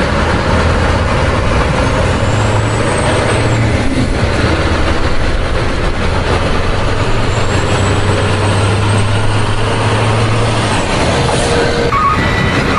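A large truck's engine running steadily, a dense noisy rumble with a low drone.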